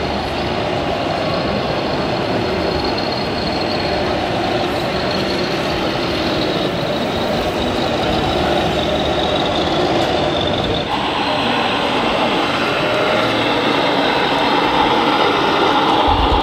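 Steady truck engine sound from scale RC model trucks, mixed with the din of a crowded exhibition hall and people talking; the sound shifts in character about eleven seconds in.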